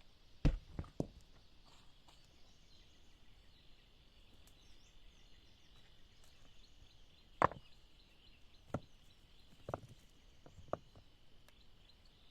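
Irregular knocks and thuds, three close together in the first second and then single ones spread over the rest, over a steady high insect drone.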